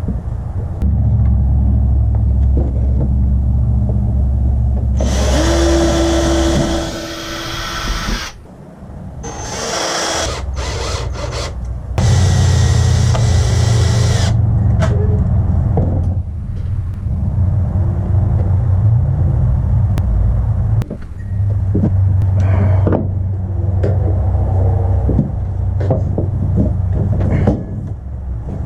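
A power tool running in several spells, louder and harsher at times, over a steady low drone.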